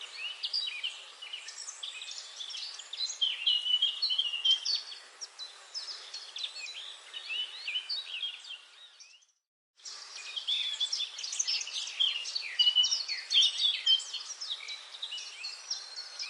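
Dense chorus of many songbirds singing and chirping in a forest, with short overlapping calls and quick pitch glides. The sound fades out and drops to silence for about half a second just past the middle, then cuts straight back in.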